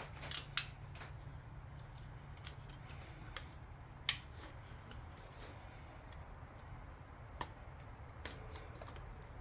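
Metal gasket scraper scraping an old intake manifold gasket off a Chevy 350 V8's cylinder head, in short scratchy strokes with sharp clicks, the loudest about half a second and four seconds in. A low steady hum runs underneath.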